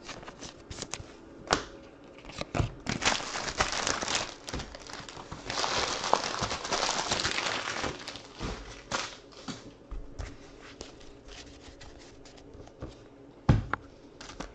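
Clear plastic trading-card pack wrappers crinkling and rustling as they are handled, loudest in two long stretches a few seconds in, with scattered sharp clicks and taps.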